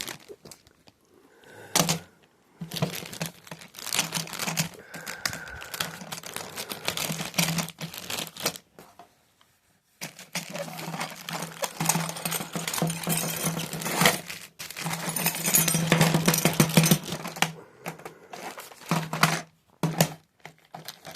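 Packaging being handled and opened by hand: crinkling and rustling with many small clicks and clatters, in two long stretches with a short pause between them.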